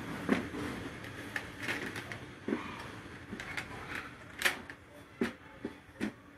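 Irregular light clicks and knocks of small hard objects being handled, about a dozen scattered over several seconds, the sharpest about four and a half seconds in.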